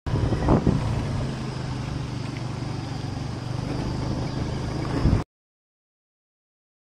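Motorbike engine running at a steady low hum, mixed with road and wind noise; the sound cuts off suddenly about five seconds in, leaving silence.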